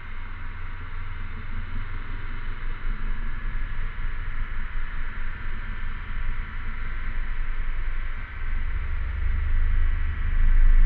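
Steady shrill chorus of cicadas, with a low rumble underneath that swells near the end.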